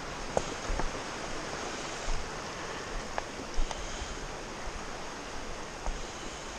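Steady rush of a shallow, rocky stream running over stones, with a few scattered sharp clicks and knocks.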